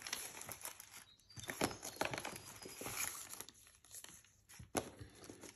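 Paper and craft supplies rustling and crinkling as they are rummaged through, with scattered light taps and a few sharper knocks.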